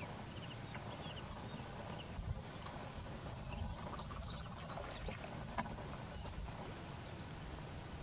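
Faint wetland ambience: a steady series of short, high bird peeps, about two or three a second, with a few other brief chirps over a low rumble.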